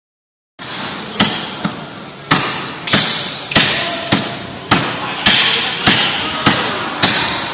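Golok machete with a silver-steel core chopping hard and fast: about ten sharp strikes, roughly one every 0.6 seconds, each with a short decaying tail.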